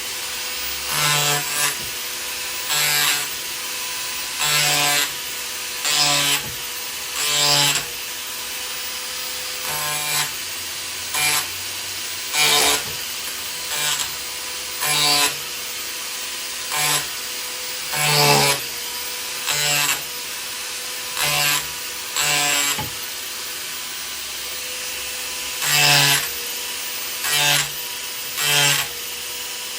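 Arbortech Power Chisel driven by an angle grinder running steadily, with a short loud burst about every second and a half as the reciprocating blade bites into the wood and is lifted off again.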